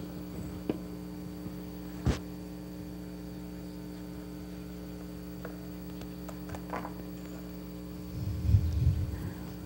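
Steady electrical mains hum on the recording, broken by a few small knocks: a sharp click about two seconds in, as a plastic cup is set down on the puppet stage ledge, and a short low rumble of bumps near the end from the puppets being handled.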